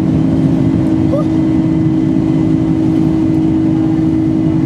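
Cabin noise of a Boeing 747-400 climbing just after takeoff: the steady drone of its four jet engines and the rush of air, with a constant low hum underneath.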